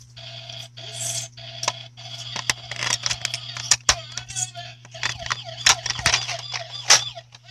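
Irregular clicks, taps and knocks from hard objects being handled and moved on a tiled floor, over a steady low hum.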